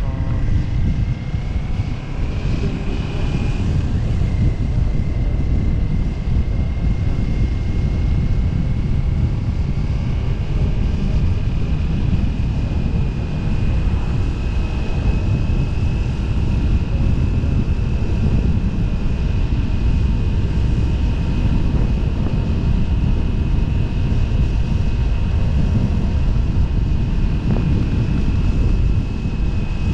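Motorcycle riding at steady cruising speed: the engine's steady drone under heavy wind rumble on the microphone, with a thin whine that rises slightly in pitch around the middle.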